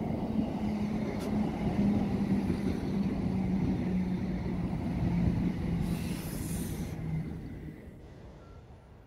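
Diesel train running past, its engine note falling slowly in pitch as it draws away and fades near the end. A brief high hiss of air about six seconds in.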